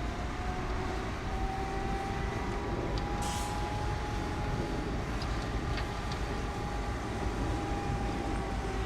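Crawler bulldozer working, its diesel engine running steadily with a faint held whine that drifts slightly up and down, and a few light metallic clicks from the machine about the middle.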